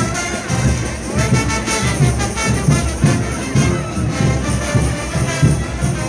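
Frevo brass orchestra playing: trumpets and trombones carry a melody over a steady drum beat of about two hits a second.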